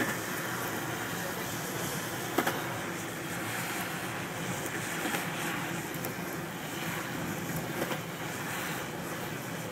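Steady road and wind noise from a slow-moving SUV on a concrete street, with one sharp click about two and a half seconds in.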